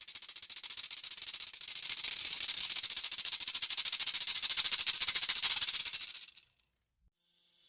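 Rattlesnake shaking its tail rattle in a continuous fast buzz that swells in loudness and then cuts off abruptly; a warning rattle.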